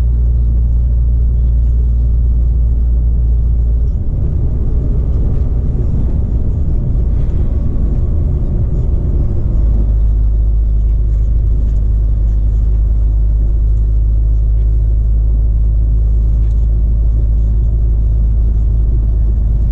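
Cab interior of a Volvo FH16 660 truck on the move: a steady, loud, low drone from the 16-litre straight-six diesel and the road. About four seconds in, the lowest rumble turns rough and uneven for some five seconds, then settles back to a smooth drone.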